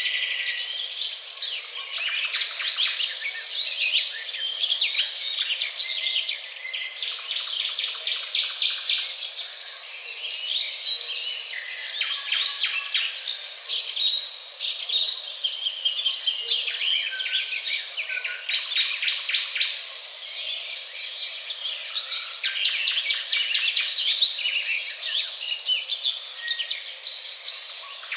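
Several songbirds chirping and singing at once: dense, overlapping high chirps and rapid trills that carry on without a break.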